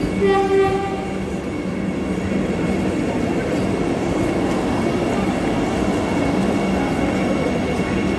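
Vande Bharat Express electric train gives one short horn blast just after the start, then rolls past along the platform with a steady rumble and hum.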